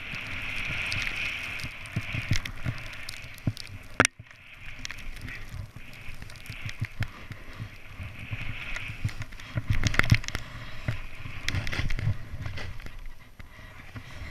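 Powder snow hissing and swishing under a rider gliding downhill, broken by frequent knocks and thumps, with one sharp knock about four seconds in and a denser run of them near ten seconds.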